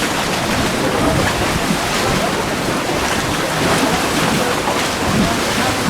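Steady wind noise on the microphone over the sound of sea water around a small boat.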